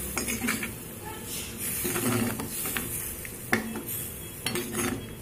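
Metal ladle stirring a wet chayote curry in a pan, scraping and clinking against the pan several times.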